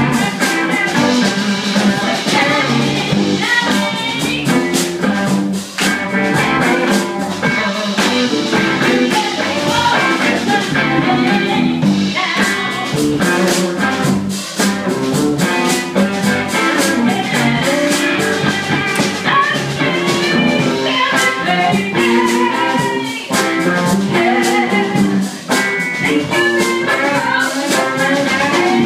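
Live blues band playing: a woman singing into a microphone over guitar and a drum kit keeping a steady beat.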